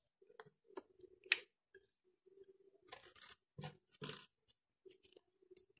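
Small items being picked up and set down on a desk: scattered light clicks and taps, a sharper click a little over a second in, and crumpled tissue paper rustling around three and four seconds in.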